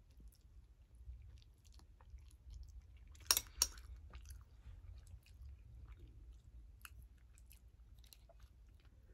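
Close-up chewing of a mouthful of instant noodles, with faint wet mouth clicks. About three seconds in there are two sharp clicks close together.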